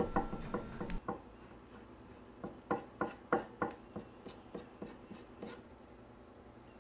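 Metal putty knife scraping and smearing mixed Bondo body filler on a plywood board and into a hot-glue mold: a run of short scrapes, about three a second, mostly through the middle.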